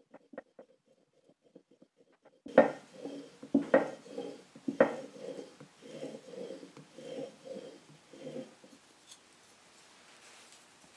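Steel plane iron in a Veritas Mark II honing guide being stroked back and forth on fine abrasive honing film to hone a micro bevel: a run of scraping strokes with three sharp clicks about a second apart, stopping about nine seconds in.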